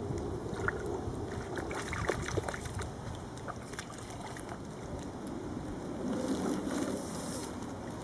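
Shallow pond water sloshing and splashing around a wading Canada goose as it dabbles its bill in the water, with scattered small clicks.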